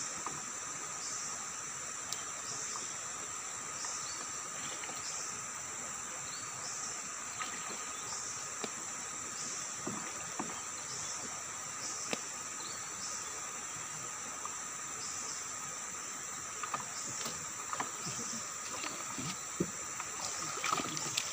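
Insect chorus: a steady high drone with a pulsing call repeating about once a second. Scattered light taps and rustles come from a nylon gill net being handled in a wooden boat, more of them near the end.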